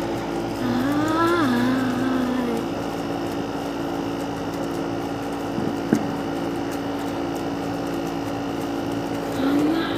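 Steady hum and hiss of an air conditioner, with a drawn-out voice sliding up and down in the first couple of seconds and again near the end, and a single sharp pop about six seconds in.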